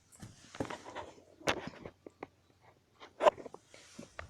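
Several short sharp clicks a second or so apart, the loudest about three seconds in, with some faint rustling: the ceiling fan's pull-chain switch being pulled through its settings.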